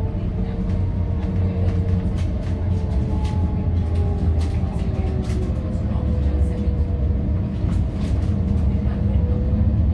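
Amsterdam GVB tram 840 running, heard from inside the passenger car: a steady low rumble with a faint whine that slowly rises and falls as the speed changes, and frequent small clicks and rattles.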